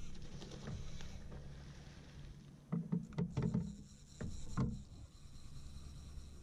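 Faint water lapping against a flats skiff's hull, with a steady low hum and several light knocks on the boat about three to four and a half seconds in.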